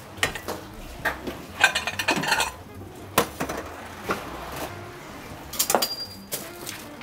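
Kitchen clatter of metal on metal: a stainless steel mixing bowl and utensils knocking and clinking on a steel counter in a string of separate sharp impacts, with a short cluster about two seconds in and a single loud knock about three seconds in.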